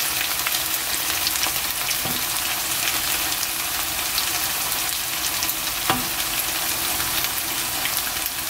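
Boneless chicken pieces frying in their own rendered fat in a nonstick wok over medium heat: a steady sizzle with scattered crackles. Two soft knocks come about two and six seconds in.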